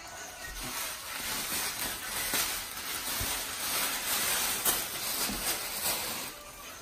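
Thin plastic wrapping crinkling and rustling as it is pulled off a speaker cabinet, a dense scratchy rustle that eases off near the end.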